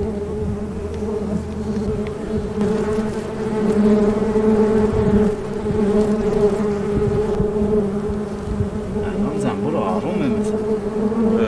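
Honeybees buzzing around an opened hive: a loud, steady, dense hum, with a few single bees whizzing close past near the end.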